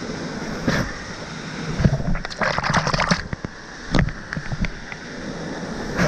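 Waterfall pouring into a pool heard close up as a steady rush, with water splashing and sloshing right by the microphone. There is a burst of splashing about two seconds in and another splash about four seconds in.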